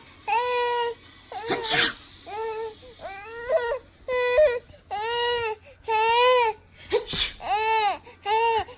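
Young infant's hiccup-laugh: a string of about ten short, high, cry-like calls, each about half a second with a rising-then-falling pitch. A sharp hiccup breaks in about two seconds in and again near seven seconds.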